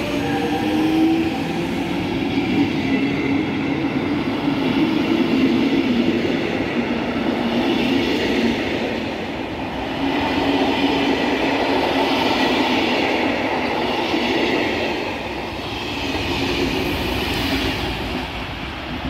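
Electric-hauled passenger train's coaches rolling past on the rails as it pulls out, a steady noise of wheels on track that eases off near the end as the train moves away.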